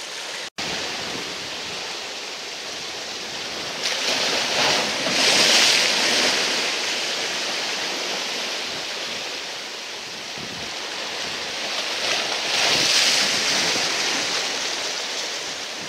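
Sea waves washing over a rocky shoreline, a steady rush that swells twice, about five seconds in and again about thirteen seconds in.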